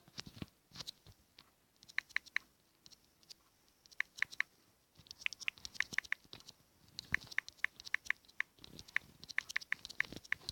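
Keyboard clicks from typing a chat message: short, sharp taps in quick bursts of three to eight, with pauses between bursts.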